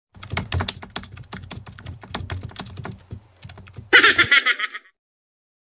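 Keyboard-typing sound effect: a quick, irregular run of clicks for about four seconds, ending about four seconds in with a short, brighter sound lasting under a second.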